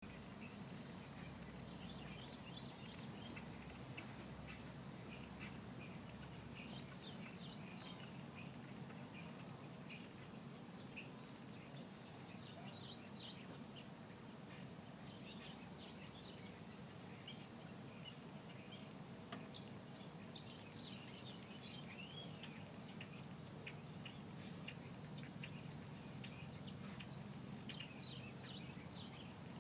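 Small birds chirping in quick, high, short notes, busiest a few seconds in and again near the end, over a steady low background hum.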